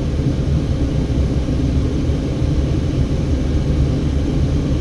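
Car driving slowly, a steady low rumble of engine and tyre noise.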